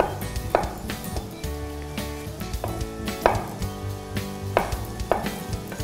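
Chef's knife dicing a tomato on a wooden cutting board: the blade knocks on the board, unevenly spaced, roughly every half second to a second.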